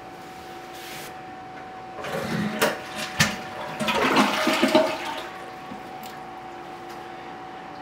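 Newly installed WaterRidge toilet flushed as a first test: a couple of sharp clicks about two to three seconds in, then a rush of water through the bowl that dies away after about a second and a half.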